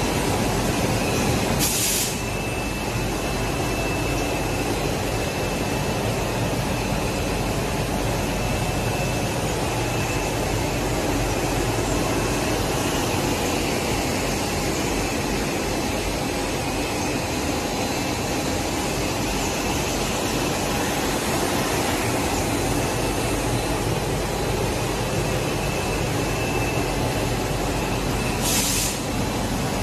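Steady factory machinery noise from a plastic zipper extrusion line running, a constant hum and hiss. Two short hisses, about two seconds in and near the end.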